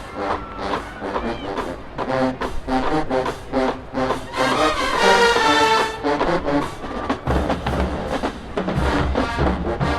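Marching band playing: brass with steady drum strikes, and a heavier low bass entering about seven seconds in.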